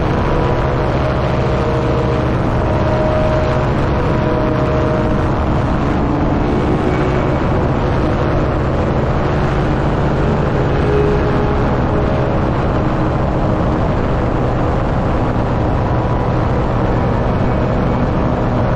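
A tandem paramotor's engine and propeller run steadily in flight, a loud, even sound close behind the seat.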